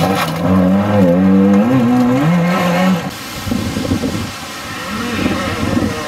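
Trabant 601 rally car's two-stroke two-cylinder engine revving hard, the pitch climbing and falling repeatedly through gear changes. About halfway through the sound changes abruptly to a quieter, rough noise with no clear engine note.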